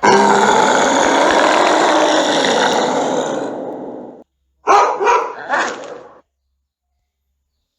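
Animal-cry sound effect, dog-like: one long loud call that fades over about four seconds, then three short calls in quick succession.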